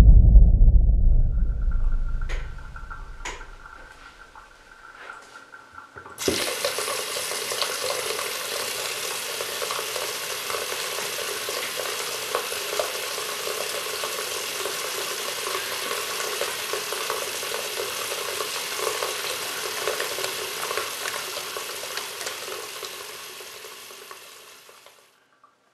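A deep boom fading away over the first few seconds, then a few sharp clicks. About six seconds in, a bathroom sink tap is turned on and water runs steadily into the basin, tapering off near the end as the tap is closed.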